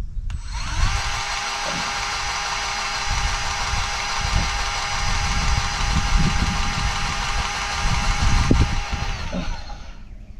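Battery-powered grease gun's motor running steadily for about nine seconds, rising in pitch as it spins up, while it pumps grease into a grease nipple on an excavator.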